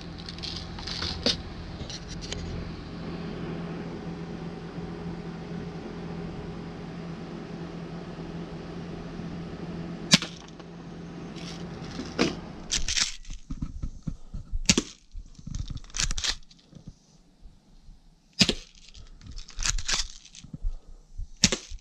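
Daisy Powerline 340 spring-air BB pistol firing, each shot a sharp snap, with the clicks of its slide being pulled back to cock it between shots; the shots come more often in the second half. A steady air-conditioner hum runs underneath and stops about 13 seconds in.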